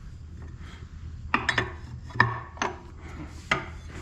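Wrenches and steel parts clinking and scraping as the fan clutch is worked loose from a tractor engine: about five sharp metallic clinks in the second half, with faint rasping between them.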